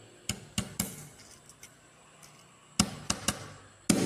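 Hammer blows on the rear camera of a Spice mobile phone lying on wooden boards: sharp knocks in quick groups, three near the start, three more about three seconds in, and a harder blow just before the end.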